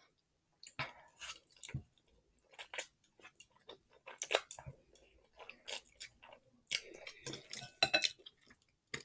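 Quiet, irregular clinks of a utensil against a bowl of instant ramen mixed with chewing as a spicy mouthful of noodles and cheese is eaten.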